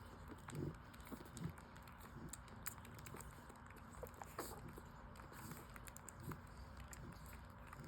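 Newborn French Bulldog puppies nursing: faint, scattered suckling smacks and clicks, with two short low grunts near the start.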